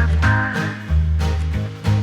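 Upbeat background music: a swing-style tune with a walking bass line and guitar.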